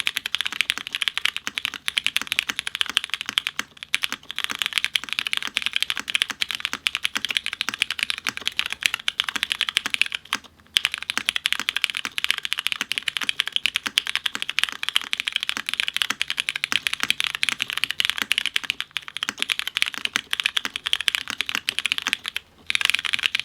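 Steady typing on a Notfromsam S80 V2 custom mechanical keyboard. It has vintage Cherry MX Brown switches, lubed and filmed, in a top-mount case with a polypropylene plate, no foam and GMK keycaps. Keystrokes come in a dense unbroken run, with short pauses about 4, 10 and 23 seconds in.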